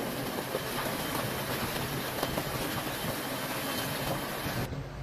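Steady rushing noise of typhoon wind and rain buffeting a ship in heavy seas, with faint scattered ticks. It cuts off suddenly near the end.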